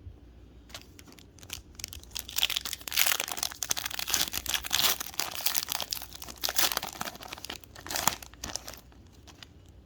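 A trading card pack's plastic wrapper being torn open and crinkled in the hands, a dense crackling that builds about two seconds in and dies away near the end.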